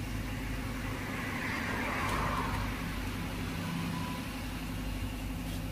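A motor vehicle's engine running steadily nearby, a low hum, with a swell of noise about two seconds in.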